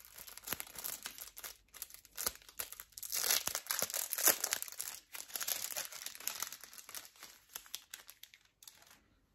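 Packaging crinkling and rustling in the hands in irregular bursts, with sharp crackles, as a fly is taken out of its pack; it stops shortly before the end.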